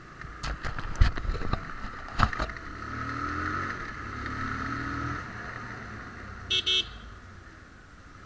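Single-cylinder engine of a TVS Apache RTR 160 motorcycle running as it rides, with a few sharp knocks in the first couple of seconds and the revs rising as it picks up speed. Two short horn toots follow about two thirds of the way in.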